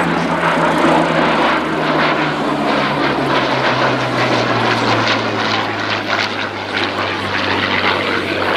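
Hawker Hurricane Mk.I's Rolls-Royce Merlin V12 engine and propeller droning loudly as the fighter flies past, the engine note dropping steadily in pitch over the first half as it passes and draws away, then holding steady.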